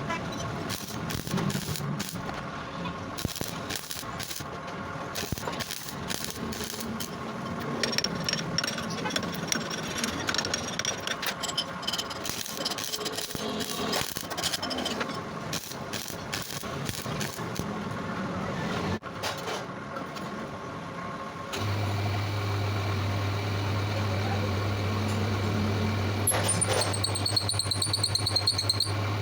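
Irregular crackling and clatter of metalwork. About two-thirds of the way in, a lathe's electric motor starts with a steady low hum, and near the end a high, pulsing squeal comes from the cutting tool on the steel PTO shaft.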